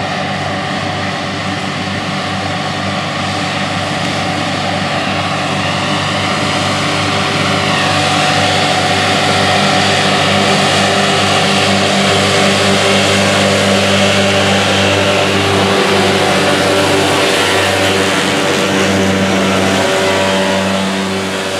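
John Deere 8245R tractor's six-cylinder diesel engine working steadily under load, with the PTO-driven Claas triple disc mower spinning and cutting hay, which makes a dense whirring hiss. The sound swells as the machine draws close and eases off near the end.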